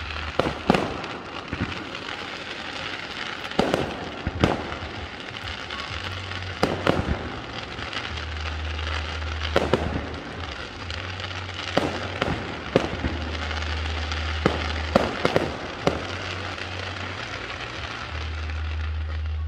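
Fireworks going off: over a dozen aerial shell bangs at irregular intervals, with continuous crackling from the falling glitter stars between them.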